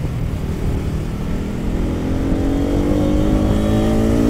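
Bajaj Pulsar NS200's single-cylinder engine running while riding, over a steady low rumble. About halfway in it accelerates, its note rising steadily.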